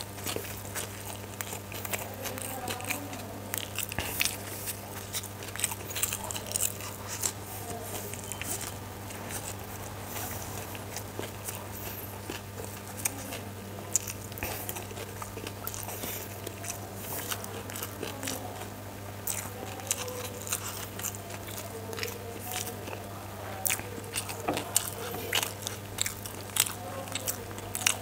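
Close-miked eating: a man chewing mouthfuls of chicken chow mein noodles, with many wet mouth clicks and smacks. A steady low hum runs underneath.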